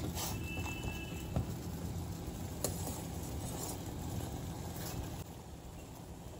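Water with roasted ground cumin boiling hard in a pan, a steady bubbling patter as it cooks down to half. A couple of light clicks of the ladle against the pan.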